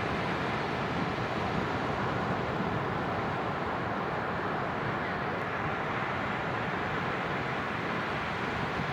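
Sea surf on a beach: a steady rush of waves without a break.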